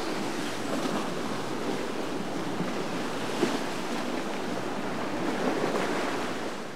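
Churning, rushing water of a fast canal current and boat wake, with wind on the microphone and a boat's outboard engines running underneath. There is one brief louder hit about halfway through.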